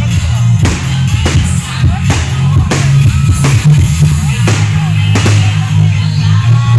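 Loud music with a heavy bass line and a steady beat.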